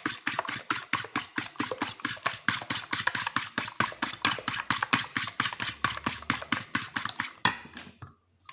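An egg being beaten by hand in a mug, the utensil clacking quickly and evenly against the mug's sides, about six or seven strokes a second. The beating stops abruptly on a louder knock near the end.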